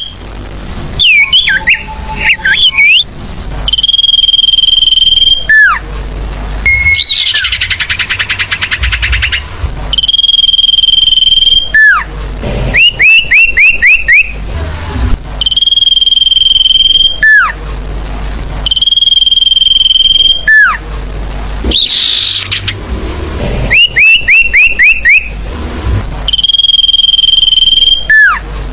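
Recorded sirfu bird lure call played loud on a repeating loop. Long steady high whistles each end in a quick drop in pitch, alternating with runs of four or five quick rising notes. Two harsh buzzy trills come in, one near the start and one about two-thirds through.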